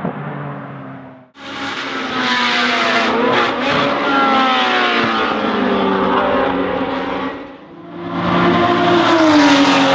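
A racing car's engine fades as it pulls away and cuts off abruptly about a second in. Racing engines at high revs take over, with several falling pitch sweeps. They drop away briefly around seven and a half seconds, then rise again loudly.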